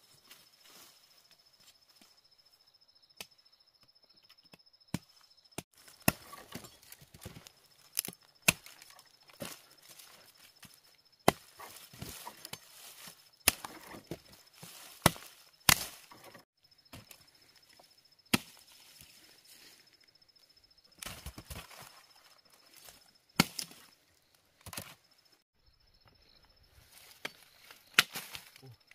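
Irregular sharp knocks, like a blade or tool chopping at wood, roughly fifteen to twenty strikes with uneven gaps between them. A thin steady high-pitched tone runs underneath.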